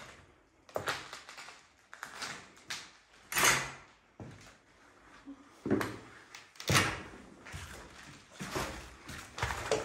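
A series of irregular knocks, thuds and scrapes, roughly one a second, the loudest about three and a half seconds in.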